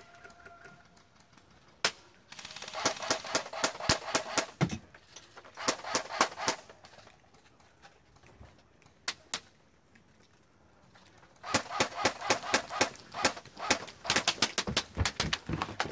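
Airsoft guns firing in rapid bursts of sharp cracks, about ten shots a second, with one single shot near the start, a short pair near the middle, and a long stretch of fire near the end.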